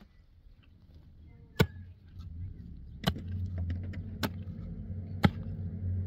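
A pick striking hard, stony soil four times, about once a second, each blow a sharp knock, over a low steady hum.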